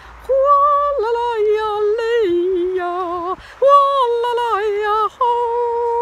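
A woman singing wordless long held notes, stepping up and down in pitch from note to note, with short breaks between phrases, one of them about three and a half seconds in.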